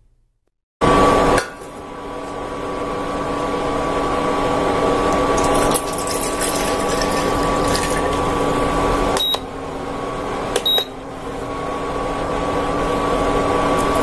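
Water poured from a plastic jug into a stainless steel pot, a steady splashing pour that starts suddenly about a second in and slowly grows louder, with two short breaks near the end.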